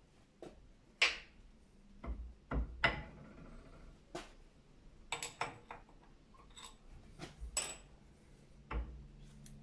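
Irregular metallic clinks and knocks as the steel crown wheel of a 2001 Isuzu rear differential is worked by hand onto its carrier, a few of them ringing briefly.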